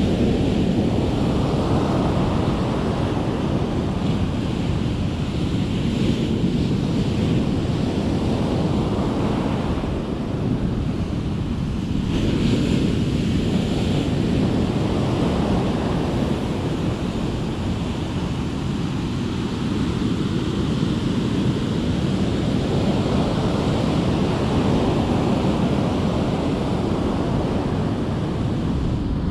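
Ocean surf breaking and washing up the sand, swelling and easing in slow surges every several seconds, with wind rumbling on the microphone.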